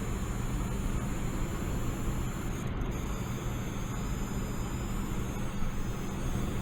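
Coil whine from the chokes of an NVIDIA GTX 1080 graphics card under gaming load at a high frame rate, picked up with the microphone held right at the card. It is a steady high-pitched whistle and squeal over a rushing noise and a low hum.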